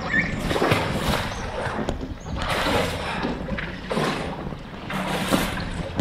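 Water splashing and sloshing in repeated bursts as a swimmer in the river turns a capsized inflatable kayak upright and pushes it around.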